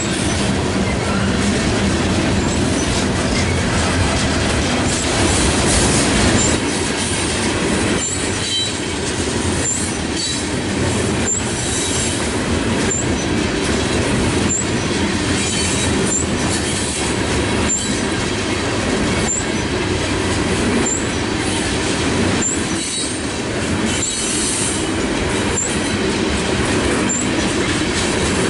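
Loaded coal train's hopper cars rolling past: a steady rumble of steel wheels on rail with a regular clack at the rail joints about every second and a half, and short high wheel squeaks.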